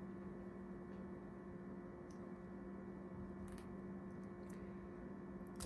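Steady low electrical hum, with a few faint light clicks from small items, such as a syringe and its packaging, being handled.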